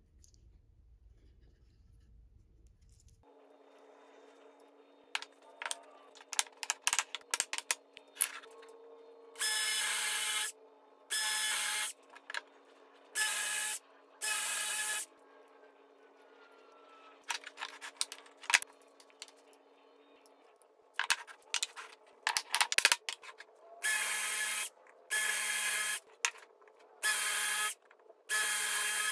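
DeWalt Atomic cordless drill boring holes into pine boards in short bursts of about a second each: four bursts, then a stretch of sharp clicks and knocks as the wood and drill are handled, then four more bursts near the end. It opens quietly for about three seconds.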